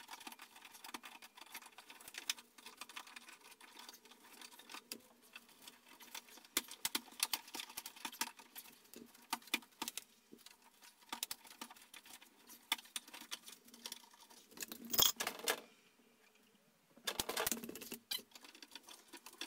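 Hand tools working at the metal screws and canopy of a ceiling light fixture: a steady scatter of small irregular clicks, taps and rattles, with two louder, longer noises near the end. The screws are rusted and stripped.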